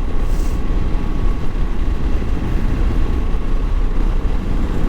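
Moto Guzzi V85 motorcycle underway at road speed: the air-cooled V-twin engine drones steadily under a rush of wind noise.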